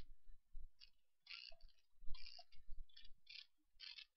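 Faint, irregular clicks from a computer mouse and keyboard, about nine in four seconds, as faces are selected and extruded in the modelling program.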